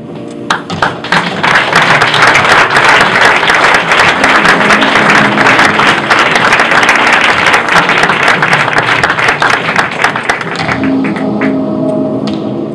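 Audience applauding, starting about half a second in, swelling, then fading near the end, with music playing underneath.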